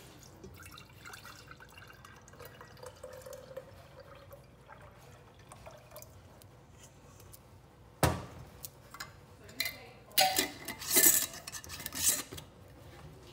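Herbal liquid poured softly from a stainless steel bowl into a glass mason jar. A sharp knock comes about eight seconds in, then glass and metal clink and scrape as a metal lid is screwed onto the jar.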